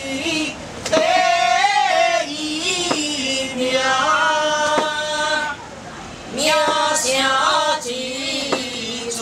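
Voices singing a Chinese temple invocation chant in long, sliding notes. A few sharp knocks are spaced through it.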